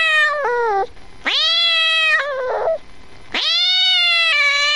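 A domestic cat meowing: a call that falls in pitch as it ends, a second meow about a second in, and a long, drawn-out meow starting past the three-second mark.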